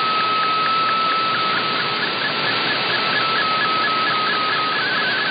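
Shortwave radio receiving a Shortwave Radiogram MFSK digital picture transmission: a single tone stepping up and down in quick regular pulses, about five a second, over steady static hiss. This is the image data being sent.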